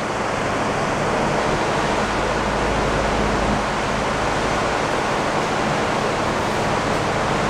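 A steady rushing noise, with a faint low hum beneath it.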